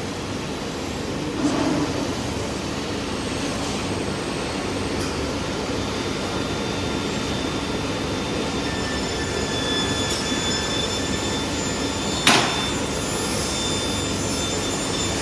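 Automatic ringlock scaffolding circular welder at work, giving a steady hiss from the welding. A sharp knock comes about a second and a half in and a louder one about twelve seconds in, and a faint high whine joins about nine seconds in.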